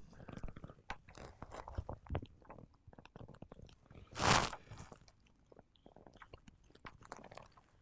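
Small clicks and light taps of precision tools handling a tiny screw and parts inside an opened iPhone 7 Plus, with a short hiss a little after four seconds in.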